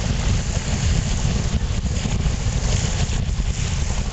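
Strong gusty wind buffeting the microphone in a constant low rumble, with a rushing hiss of wind and choppy lake water behind it.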